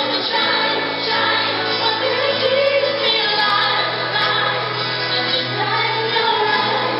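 Live pop performance: several women singing together in harmony over a full band backing track, with held notes and a steady bass. The top end is cut off and the sound is dull, as recorded from the audience.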